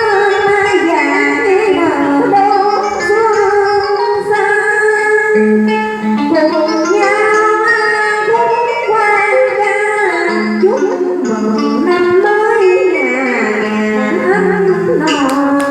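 Vietnamese đờn ca tài tử music: plucked string instruments playing a melody full of sliding, bending notes, as the piece draws to its close.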